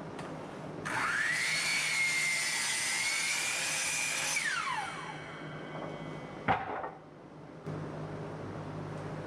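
Electric sliding miter saw starting up and cutting through a pine board with a steady high whine for about three seconds, then spinning down with a falling whine. A single sharp knock follows, about six and a half seconds in.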